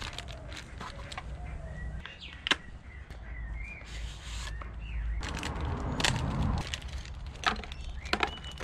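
Crinkling plastic bags and a cardboard box being handled as a fuel pump kit is unpacked: many small clicks and rustles, with a longer spell of rustling about five to seven seconds in. Birds chirp in the background.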